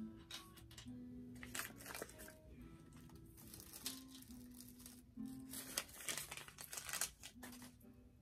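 Plastic packaging crinkling and rustling in several short bouts as it is handled and pulled open, over soft background music with long held notes.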